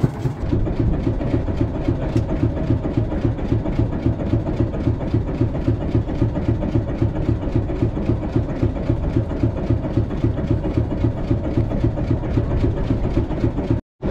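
Small wooden fishing boat's engine running with a steady, rhythmic chugging, about three to four beats a second.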